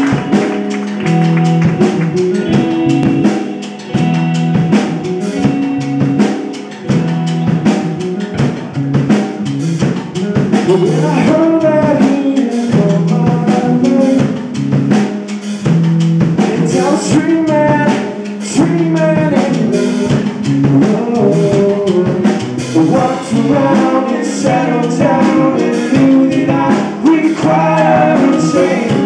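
Live rock band playing a song: drum kit keeping a steady beat under electric and acoustic guitars and bass. Lead vocals join partway through.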